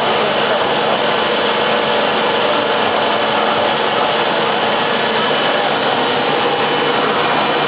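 Deckel Maho DMC 70 V vertical machining centre running: a steady mechanical hum with several constant whining tones and no change in level.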